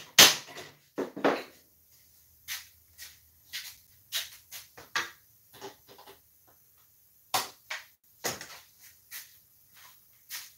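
Hammer blows setting rivets down on tractor-seat hardware. A quick run of hard strikes opens, followed by scattered lighter taps and two harder blows near the end.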